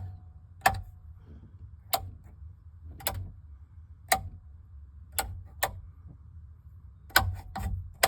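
Rocker switches on a Nilight six-gang switch panel being flipped on and off: about ten sharp clicks at uneven spacing, some in quick pairs.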